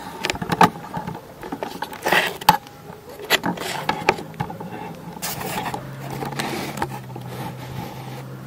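Handling noise from a handheld camera being swung around: rustling of clothing and jacket fabric with short scrapes and small knocks. A low steady hum comes in about five seconds in.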